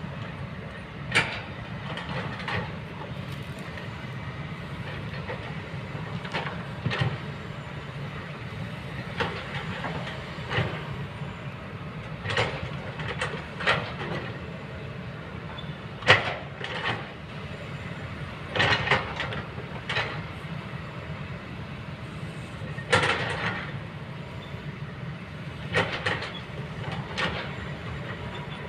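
Kobelco excavator's diesel engine running with a steady low hum, broken by repeated, irregular sharp clanks and scrapes as the machine works.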